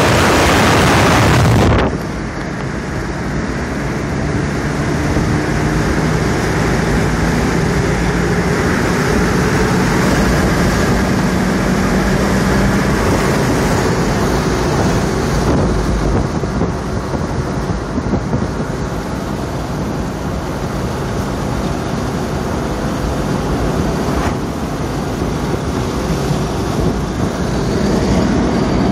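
Porsche Boxster's flat-six engine running at a steady cruise, mixed with tyre and wind noise from driving with the top down. For about the first two seconds a louder rush of wind on the microphone covers everything.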